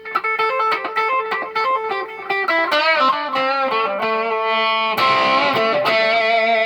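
Electric guitar playing a lead lick: a quick run of single notes with vibrato, then held notes near the end.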